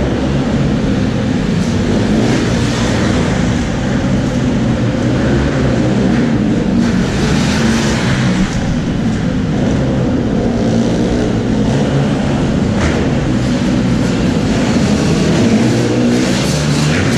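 Motocross bike engines: one runs steadily close by, while other dirt bikes rev up and back off as they ride the track.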